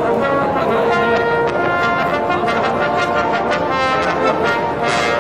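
Brass music playing: held notes that change pitch every second or so, several voices at once, over a background of crowd noise.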